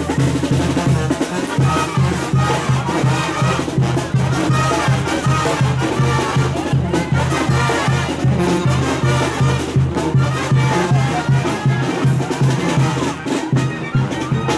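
Brass band playing, with a sousaphone bass line repeating in a steady beat under the horns.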